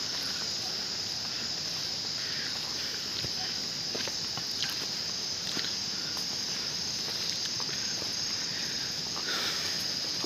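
A steady, high-pitched insect chorus, with a few faint footsteps on a stony forest path.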